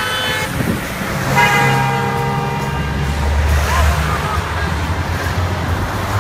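Vehicle horns honking as race support vehicles pass: a short toot at the very start, then a longer one about a second in. Under them runs the steady engine of a pickup truck driving past close by.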